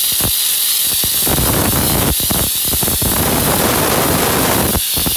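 Handheld steam cleaner jetting steam through its scraper attachment onto a burnt-on spot on floor tile: a steady, loud hiss with an uneven crackle underneath.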